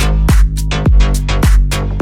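Background music: an electronic track with a heavy beat and falling bass hits about twice a second.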